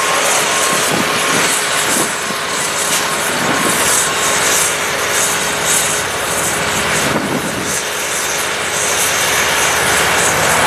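Trackless sidewalk tractor with a 75-inch ribbon snowblower running, a steady loud engine-and-blower noise with no breaks.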